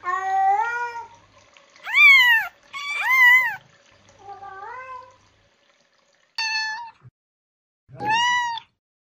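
A domestic cat meowing six times in short, separate meows. The loudest two come about two and three seconds in, each rising then falling in pitch, and there is a brief pause a little past halfway.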